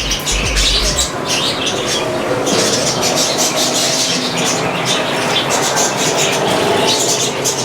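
Many small birds chirping and squawking without a break, over a steady, loud background noise.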